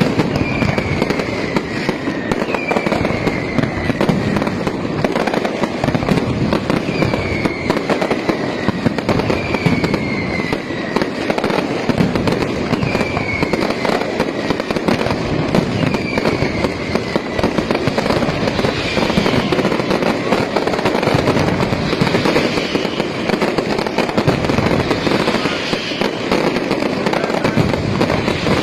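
Aerial fireworks display: a dense, continuous crackling barrage of small bangs, with short whistles falling in pitch every few seconds.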